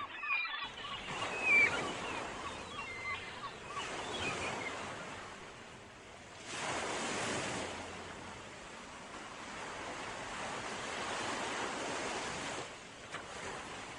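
Sea waves washing in and drawing back, with a surge swelling about six and a half seconds in and another building near the end.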